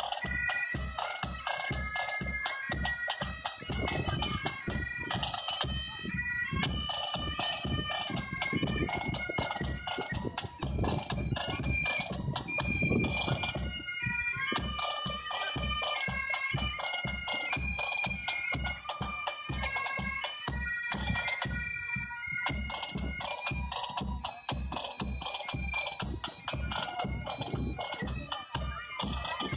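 A pipe band playing: Highland bagpipes play a tune in held, phrased notes over drums beating a steady rhythm.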